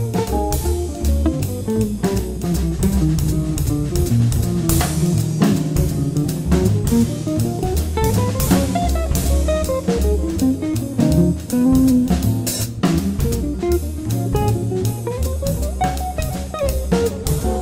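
Small jazz combo playing a slow standard: a jazz guitar picks out a moving melodic line over bass and a drum kit.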